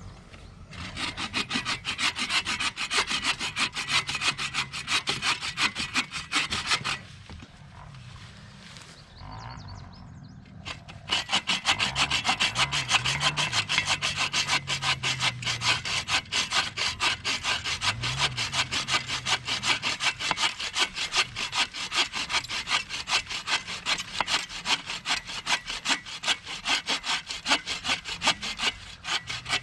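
Hand saw cutting through firewood in quick, even back-and-forth strokes, stopping for about four seconds partway through and then starting again.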